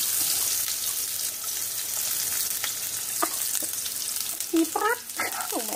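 Sliced shallots and garlic sizzling and crackling in very hot cooking oil in a wok, spattering because the gas flame is turned up too high. A voice briefly exclaims about four and a half seconds in.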